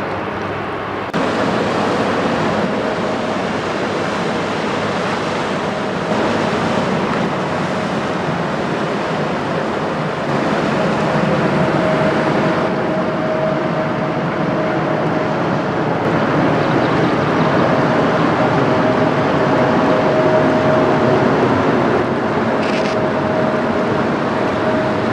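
Inland motor cargo ship passing close by: a steady diesel engine drone over rushing water, with a thin steady hum that comes and goes.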